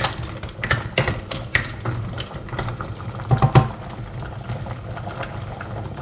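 Wooden spoon stirring pipis (cockles) in a stainless steel saucepan of boiling coconut-milk sauce: shells clicking and clacking against each other and the pot, with a few louder, ringing knocks about three and a half seconds in. After that the sauce bubbles quietly.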